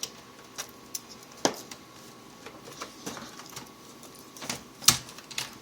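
Irregular clicks and knocks from handling the plastic parts of an Acer H233H monitor being taken apart, about eight in all, the loudest shortly before the end.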